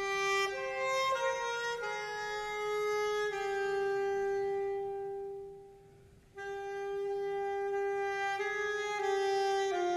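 Saxophone playing a slow melody in long held notes. The phrase fades out about five seconds in, there is a short pause, and a new phrase begins.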